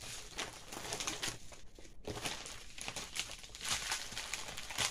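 Plastic packaging from a diamond-painting kit crinkling and rustling as it is handled, in uneven spurts with a short lull a little under two seconds in. The crinkling is loud enough that the handler calls it not pleasant.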